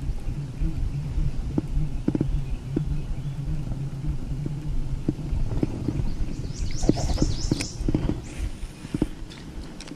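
Handling noise from a baitcasting rod and reel during casting and retrieving: irregular knocks and clicks over a low steady hum, with a quick run of high ticks about two-thirds of the way in and a brief high hiss after it.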